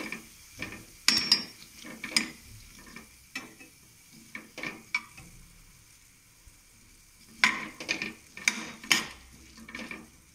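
Slotted metal spatula scraping and knocking against a metal kadai as sliced ivy gourd is stirred and sautéed in oil, over a faint sizzle. The stirring strokes come in bursts, with a quieter pause around the middle.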